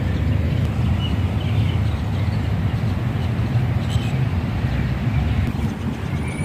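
Steady low outdoor rumble with faint bird chirps over it, a few of them in the first half.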